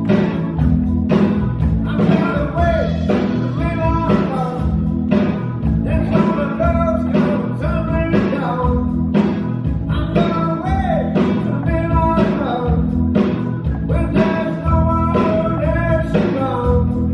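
Live blues band playing: electric guitar, horn section, keyboard and drums keeping a steady beat.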